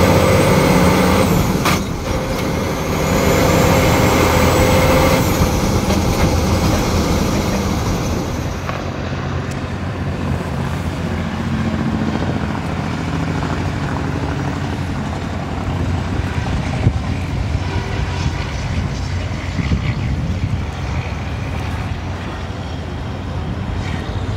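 Diesel semi-truck engine heard from a camera on the truck's hood, running hard with its pitch climbing twice and a brief dip about two seconds in. About eight seconds in it gives way to the steadier, duller sound of trucks running around the track, heard from the side of the course.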